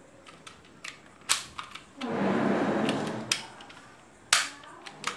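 A plastic toy air gun being worked by hand: several sharp plastic clicks, and about a second of noisy rasp in the middle that is the loudest part.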